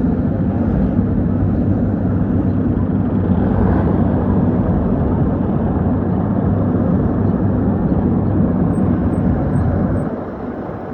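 A heavy vehicle engine running close by, a steady low rumble that falls away sharply about ten seconds in.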